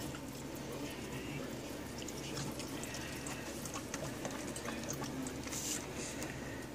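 Shallow water splashing and dripping in a plastic tub as a bearded dragon is bathed by hand, with small scattered splashes.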